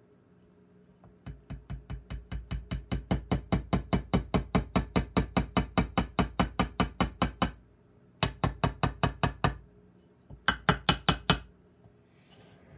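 Small plastic-faced hammer tapping rapidly on the wooden cab of a toy bulldozer, about five light strikes a second. A long run of taps that grows louder at the start is followed by two shorter runs near the end.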